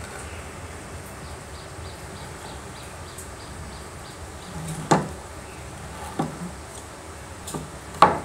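An old rusty metal compressor pump being turned over and knocked against a stone counter: a few sharp clunks, the two loudest about five and eight seconds in, over steady low background noise.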